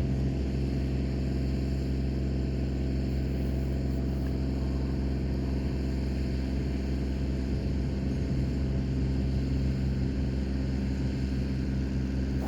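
Steady, unchanging low hum with a machine-like drone, a sound problem on the recording that masks everything else.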